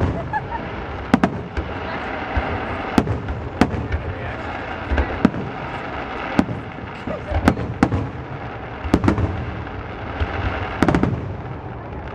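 Aerial fireworks shells bursting: a dozen or more sharp bangs at uneven intervals, some coming in quick pairs.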